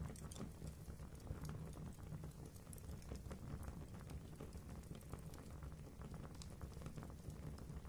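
Fire burning in a fireplace, crackling with many small irregular pops over a low steady rumble of flames.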